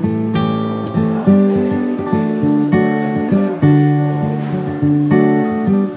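Background music: an acoustic guitar plucking and strumming a melody, each note ringing and fading.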